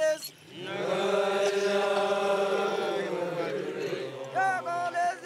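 Pokot men singing a call-and-response song in praise of a spotted ox: the group holds a long chanted chord together, then a single voice takes up the lead line near the end.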